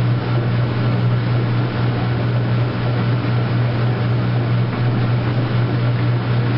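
Washing machine motor running loud and steady, a strong low hum under a rushing noise, cutting off abruptly at the end.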